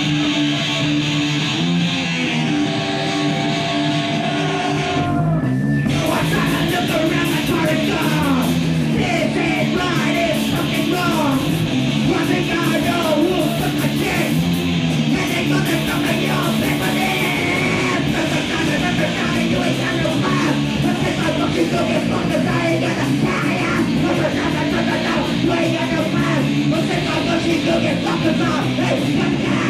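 Live heavy rock band playing with electric guitars, bass and drums. Sustained guitar notes open, and the full band comes in about five seconds in, with shouted vocals over it.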